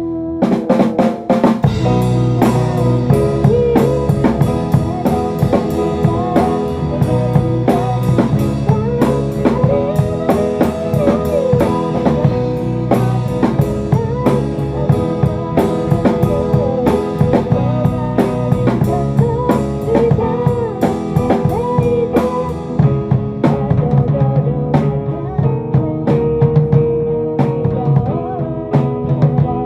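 Band music with no vocals: a drum kit with snare and bass drum keeps a steady beat under bass and a bending melodic line, likely guitar.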